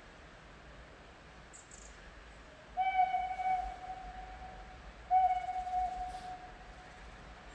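Steam locomotive whistle blown twice, two long steady blasts of about two seconds each, sounding from some distance down the line.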